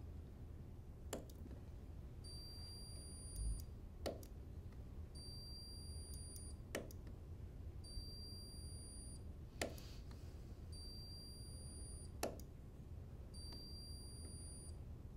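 Hand-held, trigger-operated spot welder firing on the steel flange of a vibrating-wire strain gauge: five sharp weld clicks, about one every three seconds. A short high beep follows each click about a second later, over a low steady hum.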